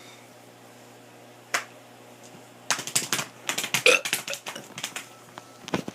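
A quick flurry of sharp clicks and taps lasting about two seconds, with a single click before it and another near the end.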